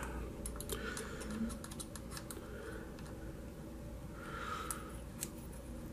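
Faint, scattered small clicks and ticks of a hex driver turning a screw in the snapped rear carrier of a Traxxas Slash RC truck, with the hands handling the parts.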